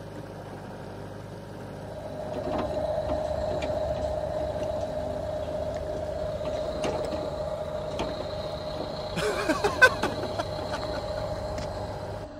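Electric motors and gearboxes of a Huina RC toy excavator whining steadily as the arm and bucket move. A cluster of clicks and knocks comes about nine to ten seconds in.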